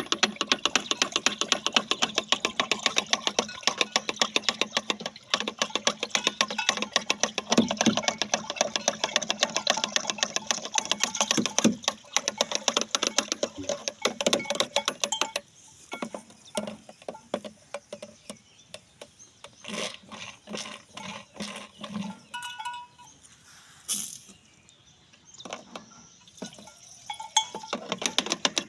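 Rapid clicking and knocking of acaricide solution being stirred in a container, many small taps a second. About halfway through it slows to sparser, softer taps, and it turns rapid again near the end.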